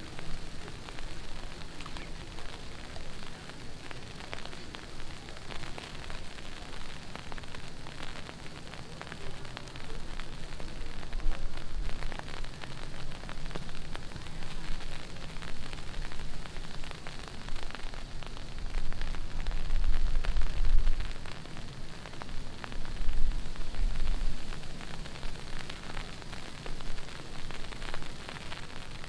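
Heavy rain falling and splashing, a dense even hiss full of fine drop ticks. A deep low rumble swells up several times, loudest about two-thirds of the way through.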